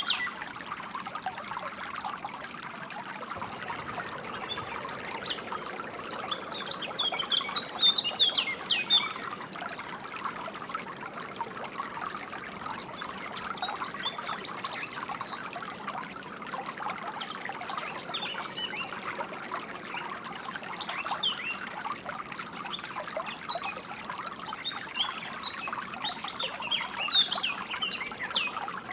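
Small stream trickling and babbling steadily, with songbirds chirping over it in short bursts, busiest about a quarter of the way in and again near the end.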